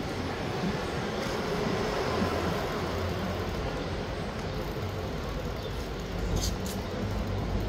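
Steady rumbling road noise of a vehicle travelling along a street, with a low hum throughout.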